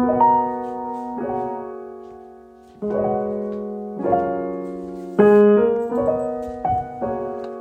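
Piano music: slow chords struck every second or so, each left to ring and fade.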